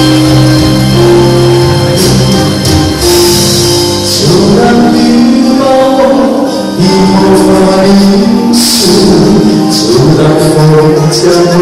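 Man singing a Chinese pop song into a microphone over a recorded backing track, played loud through a hall's PA speakers.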